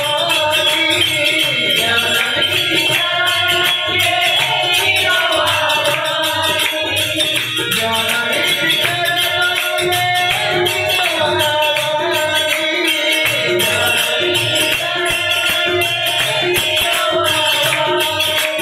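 Harmonium and tabla playing a devotional song, with jingling hand percussion keeping a steady beat.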